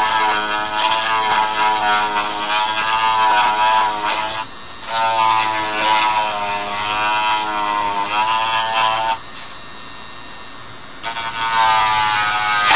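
Handheld rotary tool trimming the edge of ABS plastic armour, its motor whine wavering in pitch as the bit bites into the plastic. It stops briefly about four and a half seconds in, runs again, pauses for about two seconds after nine seconds, then starts again near the end.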